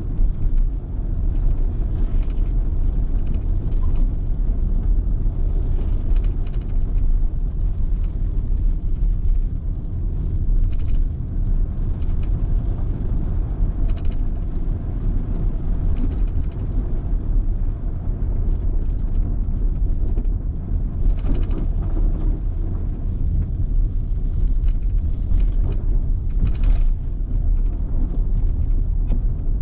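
Car driving on a snowy road: a steady low rumble of engine and tyres, with a few brief clicks and rattles.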